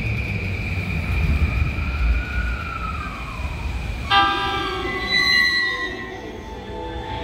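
E231 series electric train sounding its horn for departure: a sudden loud blast of several pitches about four seconds in, lasting about a second and a half, over a steady high tone and low rumble.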